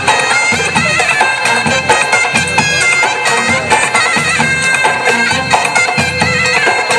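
Middle Eastern-style belly dance music: a reedy, nasal wind melody with quick stepped ornaments over a steady drum beat.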